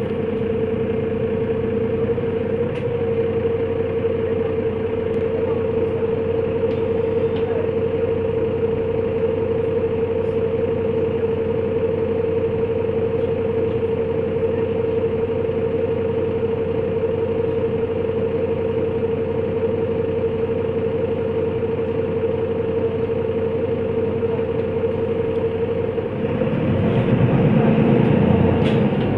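Inside a Mercedes-Benz Citaro city bus, the engine idles under a steady high hum. About three seconds before the end the engine gets louder and deeper as the bus pulls away.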